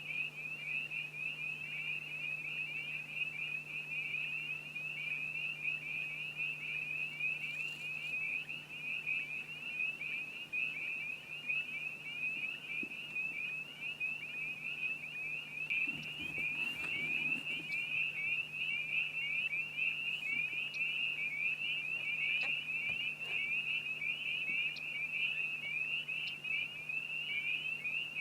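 Dense, unbroken high-pitched chorus of many frogs calling at once, with a steady low hum under it and a brief rustle about halfway.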